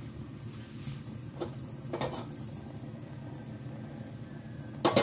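Gas stove burner running with a steady low rumble, with a few light knocks and a cluster of clatter near the end as the wok is handled on the burner.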